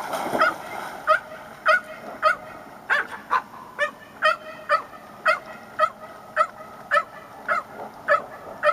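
A puppy barking over and over, short yaps about two a second.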